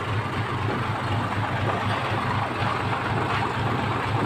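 Heavy truck's diesel engine running steadily, a low even drone with no change in speed.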